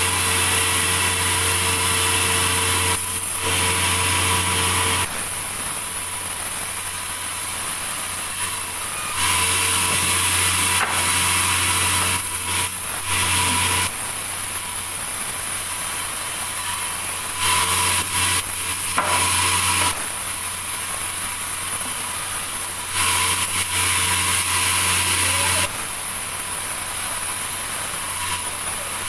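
Sawmill saw cutting a large meranti log, running steadily throughout. Every few seconds it switches abruptly between a louder state with a low hum and a high whine and a quieter, hissier state.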